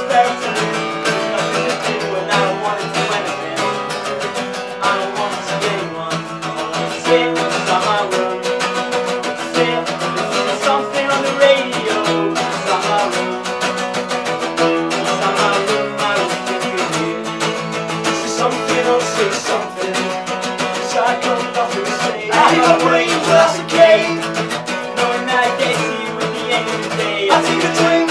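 Two acoustic guitars strummed together in an acoustic punk song played live.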